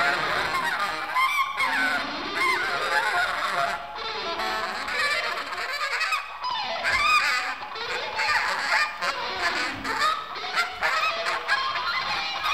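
Free-jazz ensemble of saxophone, electric guitars, bass and drums improvising. A dense tangle of lines slides and bends up and down in pitch over irregular hits.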